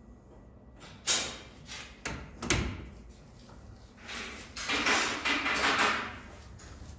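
Metal parts handled by hand at a UTV's front steering knuckle as the new tie rod end is worked into the spindle: a sharp knock about a second in, another about two and a half seconds in, then a scraping rub lasting about two seconds.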